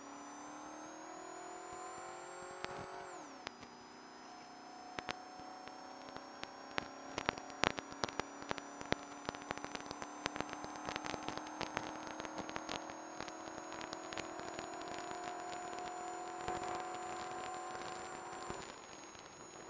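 Off-road race truck engine pulling hard, its pitch climbing and then dropping sharply about three seconds in at a gear change, then climbing slowly again until it eases off near the end. Many sharp clicks and knocks from the rough ride are scattered through the middle.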